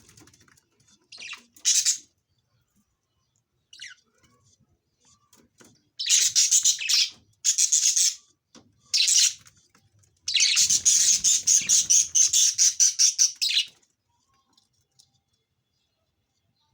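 Budgerigar chick giving bursts of raspy, rapidly pulsed cheeping calls: short bouts about 1.5 s and 6 to 9 s in, then a longer run of quick repeated pulses lasting over three seconds, with quiet gaps between bouts.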